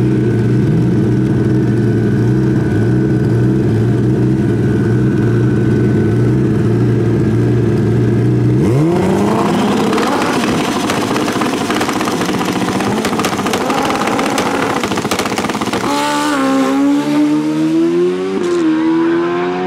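Pro Street drag motorcycle engine held at a steady speed on the start line, then about nine seconds in rising sharply in pitch as the bike launches under full throttle. Near the end the engine is heard farther off, its pitch climbing, dropping at a gear shift and climbing again.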